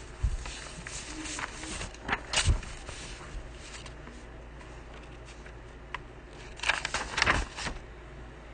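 Pause with a low steady room hum, broken by a few short knocks and rustles in small clusters: just after the start, around two seconds in, and again near the seventh second.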